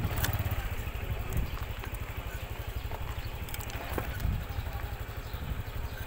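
Honda motorcycle's engine running at low speed as the bike creeps across gravel: a steady low, rapidly pulsing rumble, with a few faint sharp clicks.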